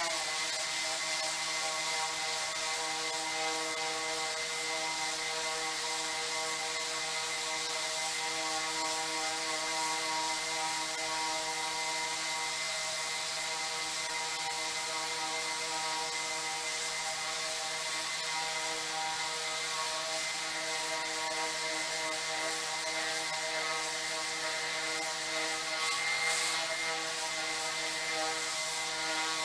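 Porter-Cable 5-inch random orbit sander running steadily on a beech cutting board, a steady motor whine under the hiss of the sanding disc on the wood. It is sanding flush the glue worked into hairline cracks.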